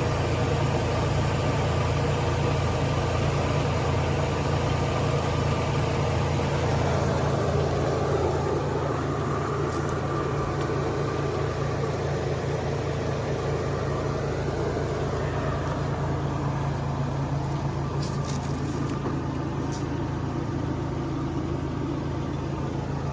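A vehicle engine idling steadily, with a few faint light ticks now and then.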